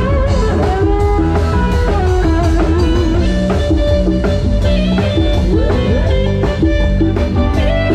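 Live band music played loud through a sound-truck PA: an electric guitar plays a lead melody with bent notes over heavy bass and a steady drum beat, with keyboards underneath.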